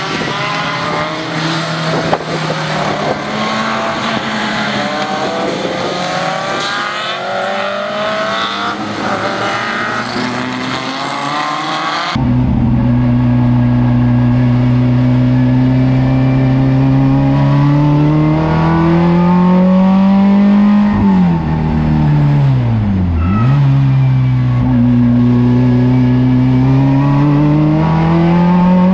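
Race car engines on track: several overlapping engine notes rising and falling as cars run past. About twelve seconds in, this switches to inside one race car, whose engine is loud and steady, climbing slowly in pitch as it accelerates. Later the note drops sharply twice as the driver comes off the throttle, then climbs again.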